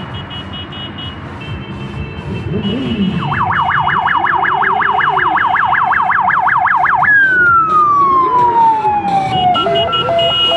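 Police car siren over the rumble and revving of a column of motorcycle engines. The siren starts with a fast up-and-down yelp, winds down in one long falling sweep, then switches to an alternating two-tone hi-lo near the end.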